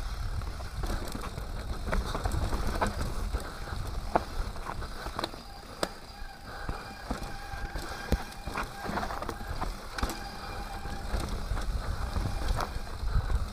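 Mountain bike descending a dirt forest trail: rumble of wind and terrain on the mounted camera, tyres crunching over dirt and leaves, and frequent sharp rattles and knocks from the bike over roots and rocks. A thin steady whine sounds from about the middle of the stretch for several seconds.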